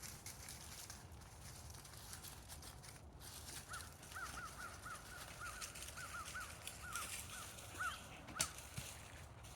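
A bird calling outdoors: a quick run of about a dozen short, clear, arched notes at one pitch, starting a few seconds in. Near the end there is one sharp click.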